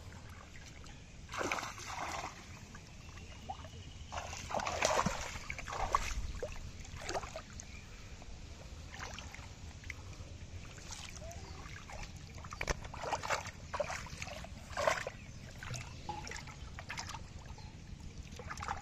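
Shallow muddy water splashing and sloshing as hands grope through it and a fish is lifted out, in short bursts at irregular intervals.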